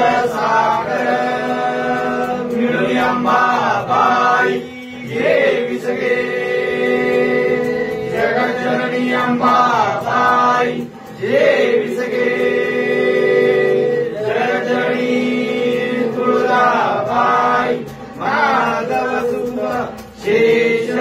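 Devotional singing: voices chanting a hymn in long held phrases, with a short pause about every seven seconds.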